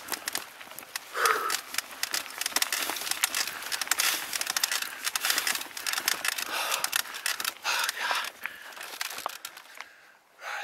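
Mountain bike rolling down a dirt trail: tyres crackling over dirt and gravel with the bike rattling over the bumps. It quietens near the end as the bike slows almost to a stop.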